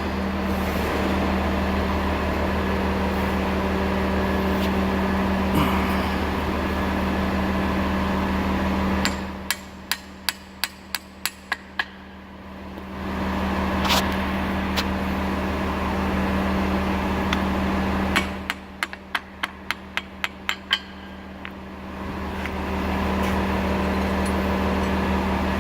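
An engine running steadily, broken twice by a run of about eight quick, sharp metal taps from a hammer. The engine hum drops away while the taps come.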